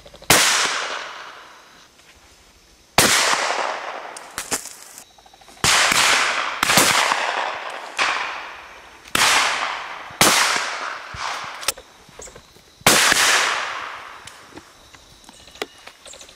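Shotguns firing: about seven loud shots, some in pairs about a second apart, each trailing off in a long echo, with fainter distant shots between them.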